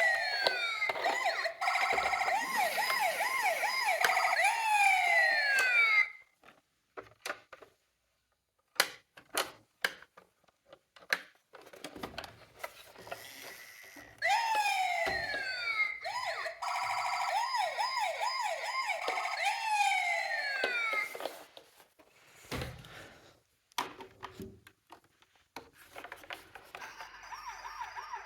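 Electronic siren sounds from toy emergency-vehicle minicars (ambulance, police car, fire truck), several wailing and yelping sirens overlapping at once. They stop suddenly about six seconds in, leaving scattered clicks and knocks, start again for about seven seconds, and near the end a softer, fast warbling siren sounds.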